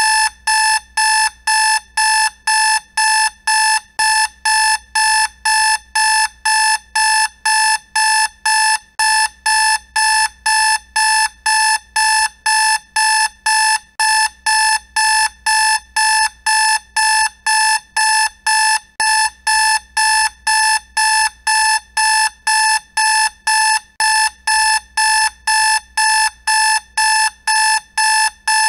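Alarm clock beeping, a loud, high, even beep repeating about twice a second without a break.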